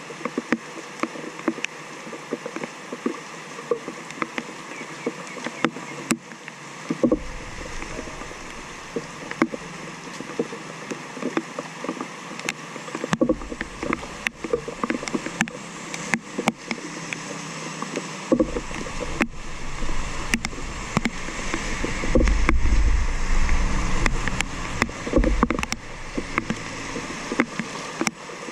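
Rainwater splashing and flowing at a clogged street drain, with frequent short knocks and splashes throughout. A deeper rushing grows stronger about two thirds of the way through.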